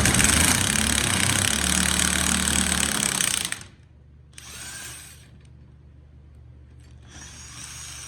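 A power tool runs hard for about three and a half seconds, then twice more in shorter, quieter bursts. It is turning the bolt of a socket-and-nut puller to press a worn steel shifter bushing out of its aluminium bracket.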